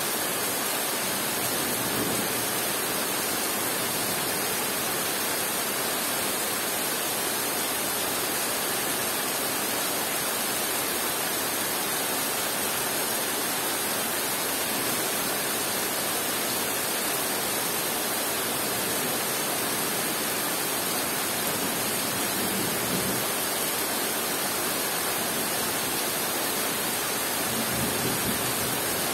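Heavy rain falling steadily on dense forest foliage, a constant hiss of drops on leaves. A faint low rumble of distant thunder rises near the end.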